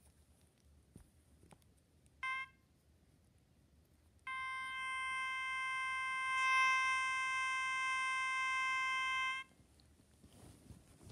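Small white plastic ball toy giving off an electronic beep: one short beep about two seconds in, then a long steady beep of one unchanging pitch lasting about five seconds and cutting off sharply.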